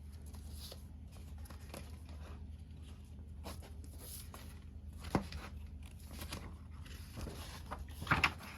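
Handling of a vinyl record's packaging: scattered light taps, clicks and rustles of the sleeve and wrapping as it is opened, with a sharper tap about five seconds in and a few more near the end, over a steady low hum.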